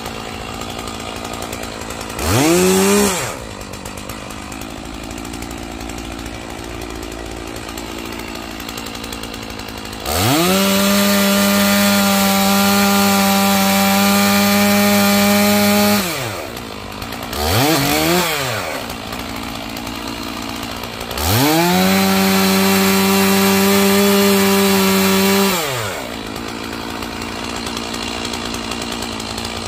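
Stihl MS461 two-stroke chainsaw idling, blipped briefly twice, and run at steady full throttle for about six seconds and then about five, cutting through logs.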